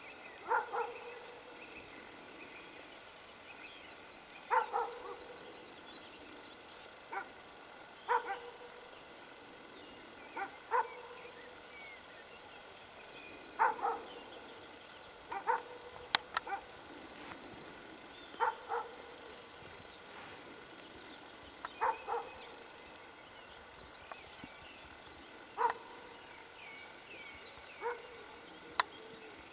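An animal barking over and over: a short bark or a quick pair of barks every two to three seconds, with a sharp click about halfway through.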